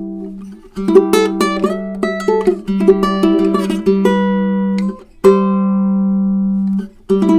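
Tenor ukulele with a figured koa back and sides and a redwood top, played in improvised picking: plucked notes and chords ring over a sustained low note. The sound cuts out suddenly and briefly three times.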